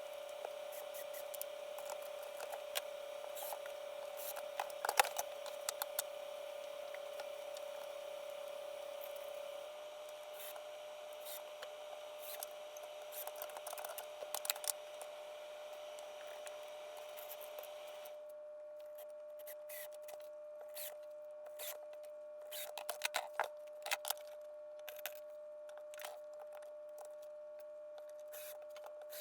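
Scattered small clicks, taps and knocks of hand work, such as fitting casters and screws to a wooden mobile base, over a steady electrical hum. The background changes abruptly a little past halfway.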